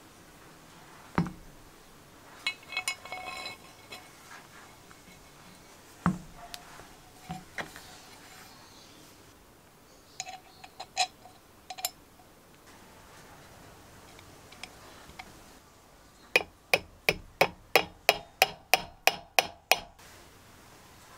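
Small steel parts of a hand drill clinking and knocking as they are handled and fitted to the gear housing. A few ringing metal clinks are followed near the end by a run of about a dozen sharp, evenly spaced metallic taps, three to four a second.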